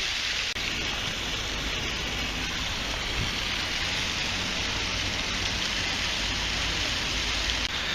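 Artificial park waterfall: water rushing and splashing steadily down its cascade.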